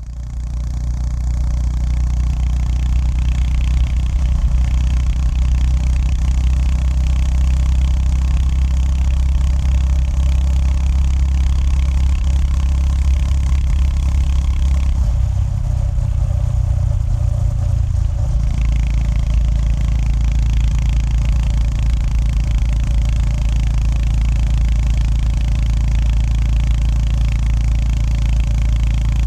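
Honda GB350S's single-cylinder engine running steadily under way, its low exhaust note carrying throughout. A little past the middle, the note changes for about three seconds, then settles back.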